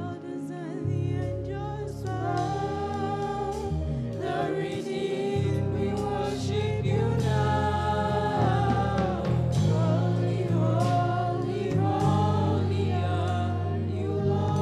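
Gospel worship music: a group of voices singing over a sustained keyboard or bass accompaniment, growing fuller about two seconds in.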